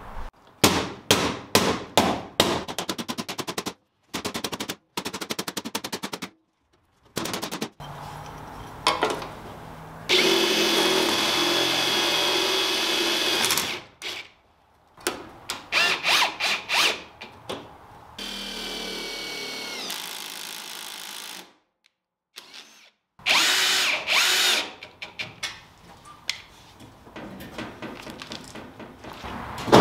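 Cordless power tools at work on aluminium diamond plate and angle trim, an impact driver driving screws among them. Several separate runs: quick trains of clicks in the first few seconds, a steady run of a few seconds about ten seconds in, a whine falling in pitch around twenty seconds, and short bursts between.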